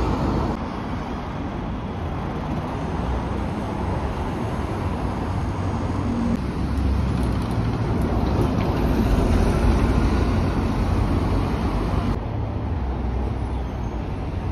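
Single-deck city buses' engines running as they pull away and pass at close range, with street traffic noise. The sound changes abruptly three times, about half a second, six seconds and twelve seconds in, as one shot cuts to the next.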